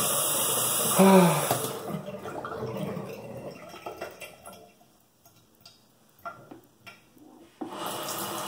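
Bathroom tap running into the sink, fading out after about two seconds and coming back on near the end; in between, faint short scratching clicks of a cartridge razor shaving a lathered mustache. A brief vocal sound about a second in.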